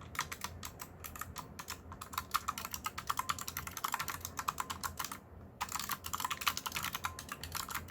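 Fast typing on a Redragon Shrapnel mechanical keyboard with Outemu switches and tall typewriter-style keycaps: a dense run of key clicks, with a short pause about five seconds in.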